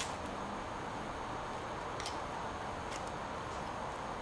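A double-row steel timing chain on an Alfa Romeo cylinder head being handled, giving two faint light clicks about two and three seconds in, over a steady low hiss.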